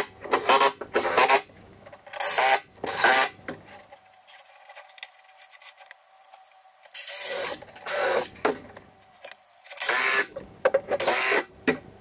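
Cordless drill boring into an old wooden stair tread in several short, scratchy bursts about a second long, with pauses between them.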